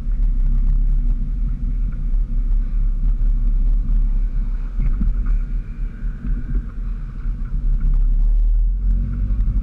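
A car's engine and tyres giving a steady low rumble as it rolls slowly.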